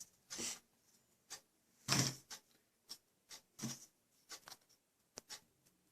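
Scattered light clicks and rustles of butter crackers being picked up and laid one by one onto a cake layer, with the loudest about two seconds in.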